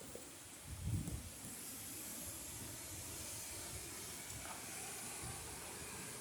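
Tropical-storm wind gust: a steady rushing hiss that builds about a second and a half in and holds, with a low buffet of wind on the microphone about a second in.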